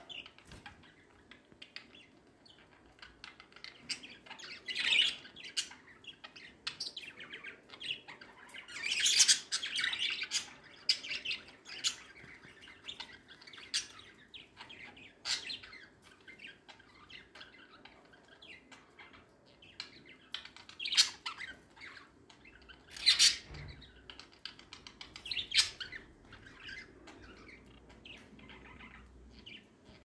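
Budgerigars chirping and chattering in short calls, with several louder bouts of calling.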